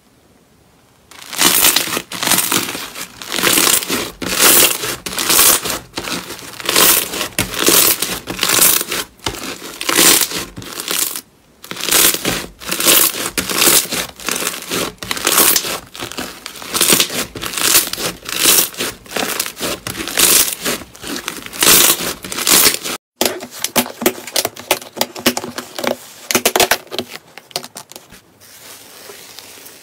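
Crunchy foam-bead slime (floam) squeezed and kneaded by hand, the beads crackling and popping in quick, crisp bursts with each squeeze. There is a short pause about eleven seconds in and a sharp break a little past twenty-three seconds, after which the crackling is softer.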